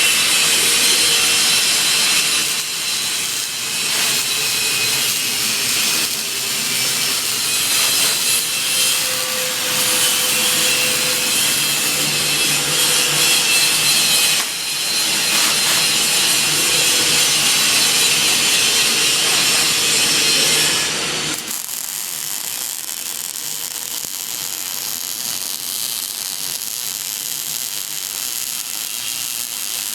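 Electric welding arc crackling and hissing steadily. About 21 seconds in it drops suddenly to a quieter, smoother hiss.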